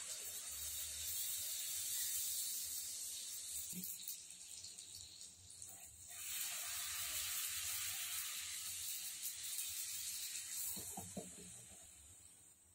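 Hot oil sizzling as puris deep-fry in an iron kadai, a steady hiss that swells again about six seconds in and fades away near the end as the puffed puri is lifted out.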